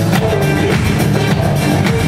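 Belly dance music with a steady drum beat under sustained melody lines.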